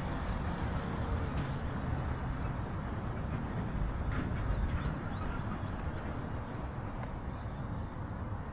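Steady wind rumble on the microphone, with a few faint short high chirps around the middle.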